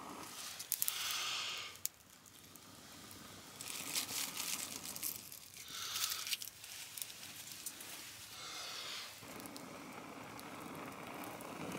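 About four long breaths blown into a bundle of dry leaves wrapped round smouldering steel wool, with the dry leaves crinkling and crackling in the hands. The blowing brings the glowing wire wool to flame.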